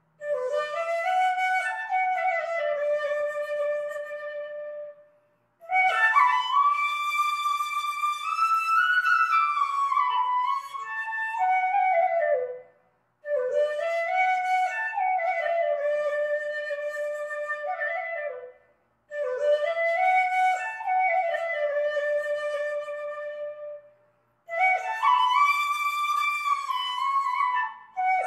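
Solo wind instrument playing a melody in phrases of several seconds, each broken off by a brief pause.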